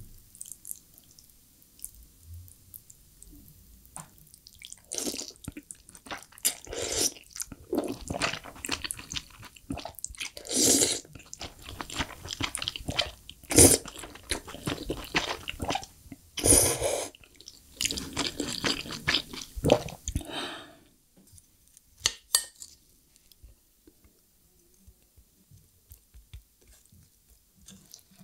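Close-miked eating: wet slurping and chewing of chewy jjolmyeon noodles in saucy mapo tofu. The sounds are sparse at first, then dense through the middle with several loud slurps, then quieter with a few short clicks near the end.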